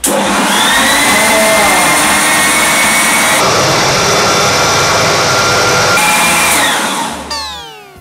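Electric countertop blender (mixer-grinder) switched on, running loud and steady as it blends a milkshake of milk, Oreo biscuits and ice cream. It is switched off about seven seconds in and winds down.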